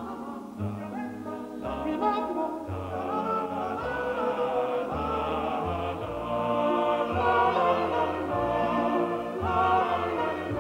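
Orchestral music with voices singing, over a bass line that steps from note to note.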